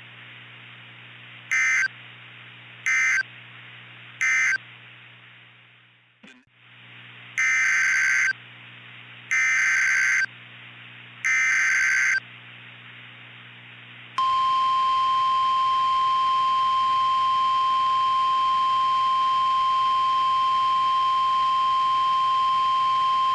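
Emergency Alert System tones in NOAA Weather Radio style: three short data bursts that mark the end of the previous message, a brief pause, three longer data bursts that carry the header of a new alert, then a steady single-pitch warning tone held for about ten seconds. A low steady hum runs under the bursts and stops when the tone begins.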